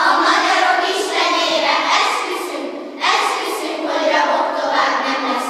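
A group of children's voices in unison, chanting a poem's lines together in about four phrases, fading out near the end.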